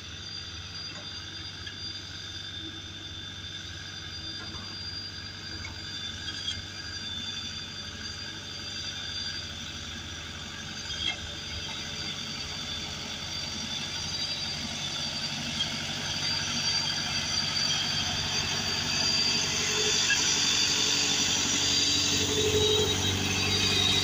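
Sakai R2S road roller's diesel engine running steadily as the roller drives along, growing louder as it comes closer.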